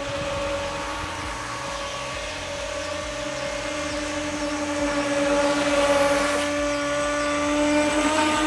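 Electric motor of a Rage Black Marlin RC speedboat whining at speed, one steady high whine over a hiss of water spray, growing louder in the second half as the boat comes close.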